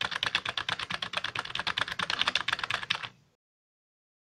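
Computer keyboard typing sound effect: rapid, even keystrokes, about ten a second, that cut off about three seconds in.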